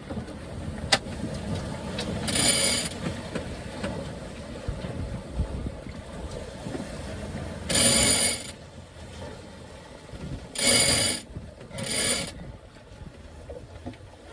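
Sailboat sheet winch cranked in four short spells, its pawls ratcheting rapidly as the sail sheet is hauled in to trim for a beam reach. A steady low rumble of wind and water runs underneath.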